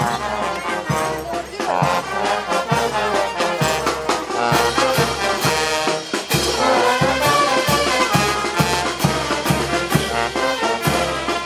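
Brass band of trumpets and trombones playing a lively tune for the Negritos de Huánuco dance, over a steady drum beat.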